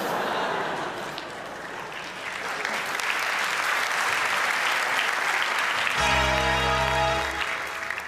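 Studio audience applauding. About six seconds in, a low musical note is held over the applause for about a second and a half.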